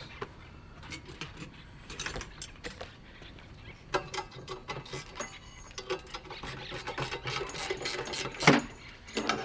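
Hand tools working on a BMX bike's brake caliper bolts: rapid, irregular metallic clicking and clinking, with one sharp knock near the end.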